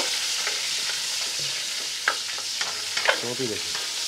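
Freshly added cut onions sizzling in hot sunflower oil in a nonstick wok, stirred with a wooden spatula that scrapes and taps against the pan a few times.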